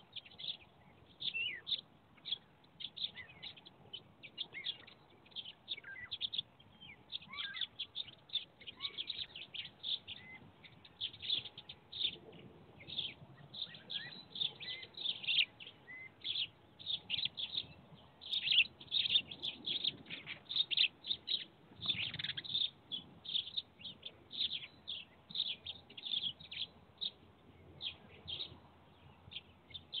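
Small songbirds chirping and twittering without pause, many short chirps in quick succession that grow busiest about two-thirds of the way through, heard thinly through a nest webcam's microphone.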